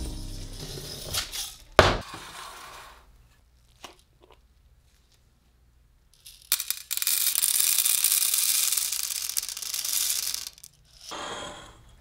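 Popcorn kernels poured from a glass jar into a stainless steel cup: a dense, steady rattle of hard kernels on metal lasting about three and a half seconds, with a shorter rattle near the end. A couple of sharp knocks come before it, the loudest about two seconds in.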